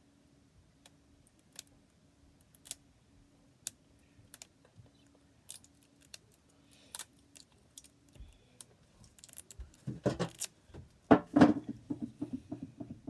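Small plastic toy capsules and their wrappers being picked and pried open by fingers: scattered sharp clicks and crinkles, with a burst of louder handling knocks and rustling about ten seconds in.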